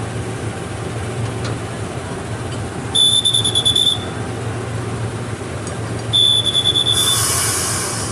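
Train locomotive running steadily with a low hum, under a high, rapidly pulsing buzzer that sounds twice for about a second each. A short burst of hiss follows near the end.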